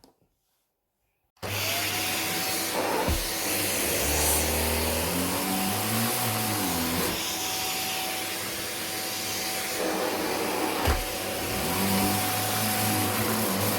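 Vacuum cleaner switched on about a second and a half in, then running steadily with a high whine over a lower hum that shifts in pitch as it works. Two short knocks come through, one early and one near the end.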